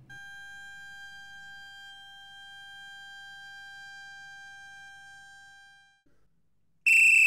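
Rubber-band vocal-cords model, two rubber bands stretched over a tube with a narrow slot between them, sounding one steady high tone as air from an inflated balloon is forced through the slot and sets the bands vibrating. The tone fades away about six seconds in. Near the end a much louder shrill whistle starts.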